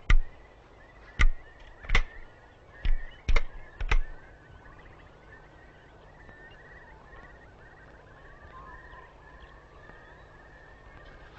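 Six sharp metallic clicks and clacks in the first four seconds: break-action shotguns being loaded with cartridges and snapped shut. After that, faint birdsong chirps on over a quiet hush.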